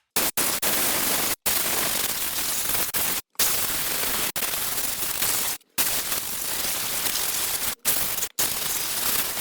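Compressed-air blow gun hissing loudly as it blasts dust and grime out of a rear disc brake. It comes in a run of blasts of one to two seconds each, every one cut off sharply by a brief gap as the trigger is released.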